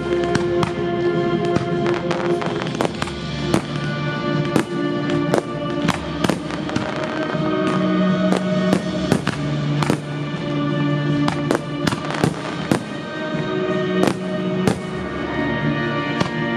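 Aerial fireworks shells bursting: a rapid, irregular string of sharp bangs over loud music that plays throughout.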